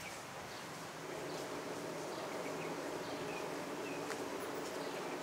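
A steady low buzzing drone comes up about a second in and holds, with a few short bird chirps over it.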